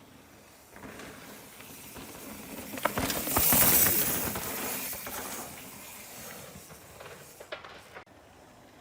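Mountain bike rolling over a loose, gravelly trail: a rushing hiss of tyres with rattles and clicks that swells to a peak about three and a half seconds in, then fades away.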